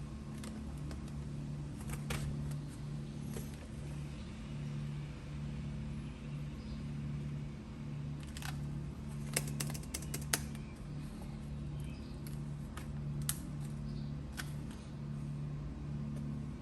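Light clicks and taps of hands handling an opened laptop's plastic case and parts, with a quick run of sharper clicks about nine to ten seconds in, over a low hum that keeps pulsing on and off.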